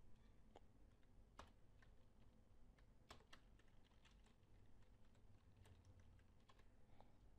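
Faint computer keyboard keystrokes, a handful of single clicks spaced irregularly, over a faint low hum.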